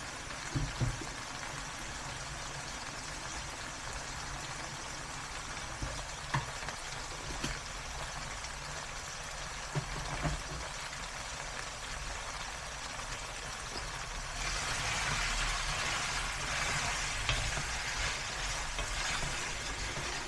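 Food frying in a pan: a steady sizzle that grows louder about fourteen seconds in, with a few light knocks of a utensil against the pan.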